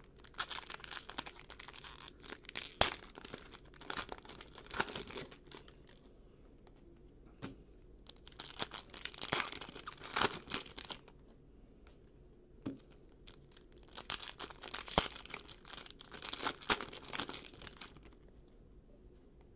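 Foil wrapper of a trading-card pack crinkling and being torn open by hand. It comes in three bursts of rustling with sharp snaps, with short quiet gaps between.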